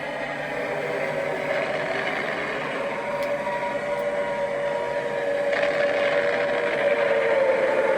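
Archival Blitz air-raid sound recording being played back: a steady mechanical drone with sustained tones that waver slightly in pitch, growing a little louder in the second half.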